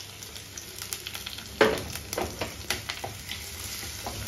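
Chopped garlic and ginger sizzling in hot coconut oil in a clay pot, stirred with a wooden spatula. One loud knock about a second and a half in, then a string of lighter knocks as the spatula works against the pot.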